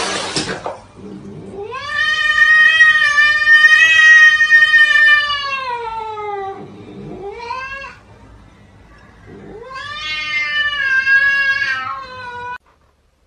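Cat yowling: a long drawn-out call that drops in pitch at its end, a short call just after, and a second long call about ten seconds in.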